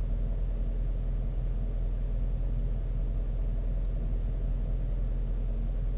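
2015 Ford Mustang GT's 5.0 L V8 idling steadily while the car stands still, a low, even rumble with no revving.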